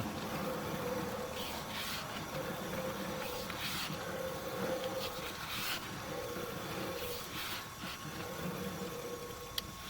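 Faint, steady mechanical hum with a whining tone that comes and goes several times, each stretch about a second long.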